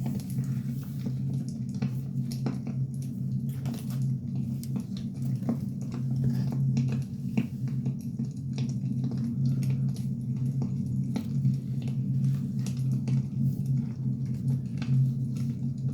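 Wood fire burning, with irregular crackles and pops from the burning logs over a steady low rumble.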